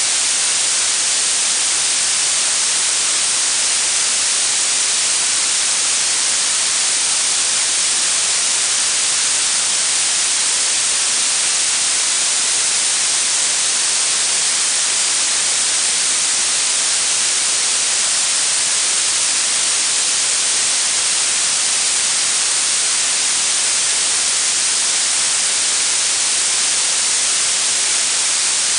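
Steady blue noise: an even hiss weighted toward the high frequencies, unchanging throughout.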